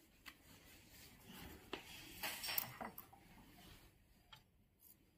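Faint clicks, knocks and rustling of a steel calibration weight being lifted and set on the pan of a digital density balance, a little louder about two to three seconds in.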